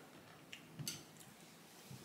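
Near silence with a few faint, short clicks and rustles as small candy and its packaging are handled on a table.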